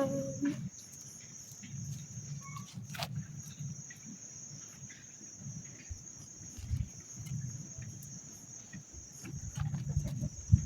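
Steady high-pitched chirring of insects, likely crickets, over an uneven low rumble, with a single sharp click about three seconds in.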